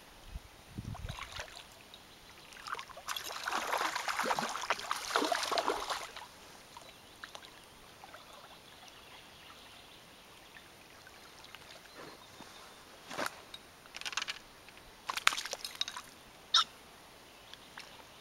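A hooked roach splashing at the water's surface for about three seconds as it is drawn in to the bank, followed later by a few short clicks and rustles.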